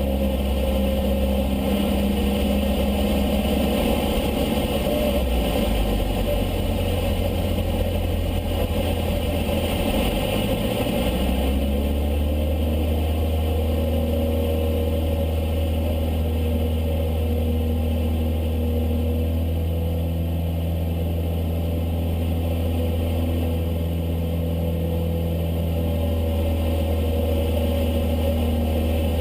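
Cessna 152's four-cylinder Lycoming engine and propeller running in flight, a steady drone whose pitch shifts about a third of the way in and then settles.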